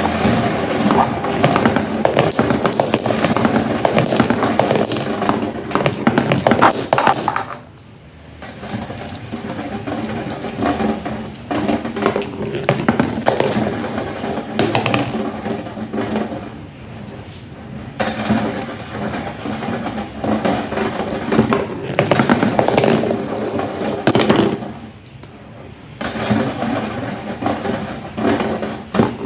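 Marbles rolling and clattering down a marble run in a dense, continuous rattle, with three brief lulls along the way.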